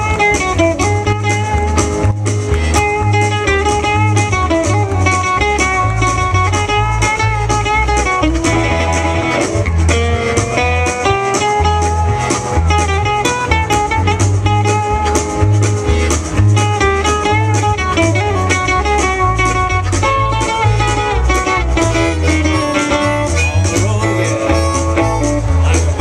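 Live band music in a long instrumental passage with no singing: guitars lead over a steady bass line and a regular beat.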